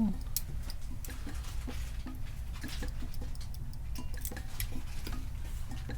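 Small, irregular clicks and ticks of a hex key working the trigger adjustment screw in a paintball marker frame, over a steady low hum.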